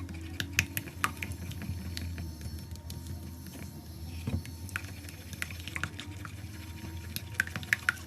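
Slime being squished and worked by hand: irregular small wet clicks and pops over a steady low hum.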